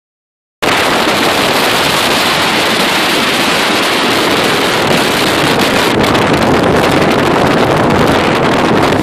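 Speedboat running at speed, with wind blowing hard on the microphone over the rush of water past the hull. The noise cuts in loud after about half a second of silence and holds steady.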